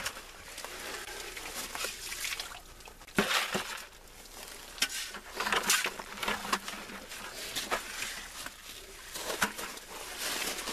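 Shovels digging into gravelly soil and dumping dirt into plastic five-gallon buckets: irregular scrapes and sharp knocks of the blades, with loose dirt pouring into the buckets.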